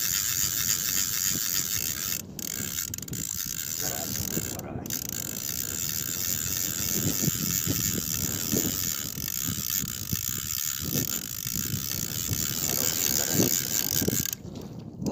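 Spinning reel being wound in against a hooked fish, a steady ratcheting whir with short pauses about two and five seconds in; it stops just before the end.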